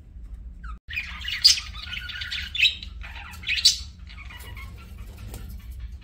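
Budgerigars chattering, starting about a second in, with three loud, sharp squawks over the next three seconds, then softer chatter.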